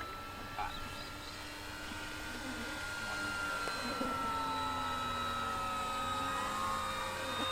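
Electric motor and propeller of a 3D-printed radio-controlled Aichi M6A Seiran model plane in flight: a steady whine that drifts slowly up and down in pitch and grows louder about three seconds in.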